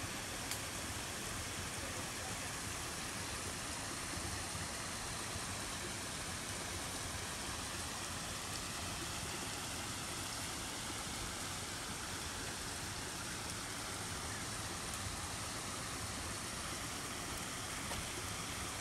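Steady, even rushing of water, with no rhythm or change in level.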